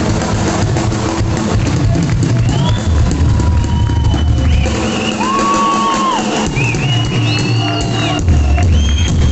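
Rock band playing live, with drum kit and heavy bass throughout and long held high notes that slide in pitch in the second half.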